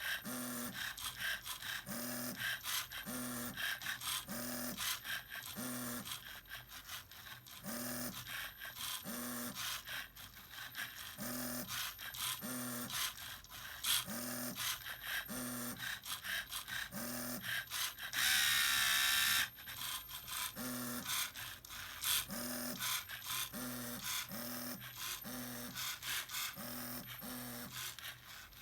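Lego Mindstorms printer's electric motors whirring in short repeated runs, roughly one a second, with one longer, louder whir about two-thirds of the way through.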